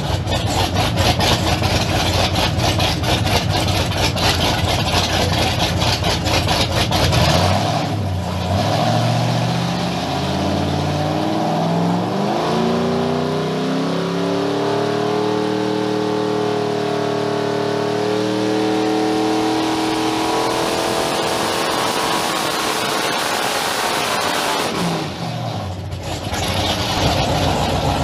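Whipple-supercharged Mercury 525 big-block marine V8 running under load on an engine dyno. It runs rough and busy at first, then about eight seconds in its pitch climbs steadily as the revs rise, holds high for several seconds, and drops back near the end.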